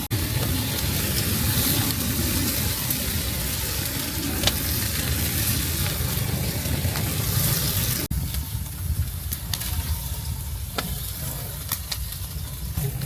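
Food sizzling as it cooks, with scattered sharp clicks. The hiss drops away abruptly about eight seconds in.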